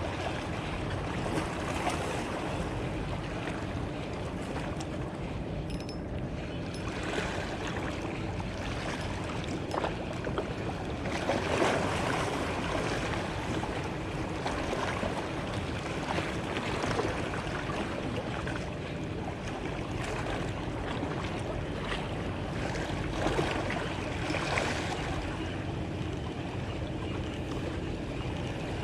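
Water lapping and splashing against a small boat, with wind on the microphone.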